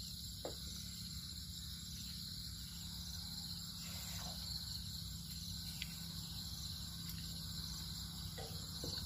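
Steady chorus of insects such as crickets, with a low steady rumble underneath and a few faint clicks.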